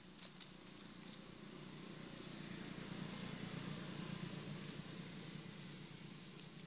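Distant passing vehicle: a low hum that swells about halfway through and eases off again, with a few faint rustles of dry leaves.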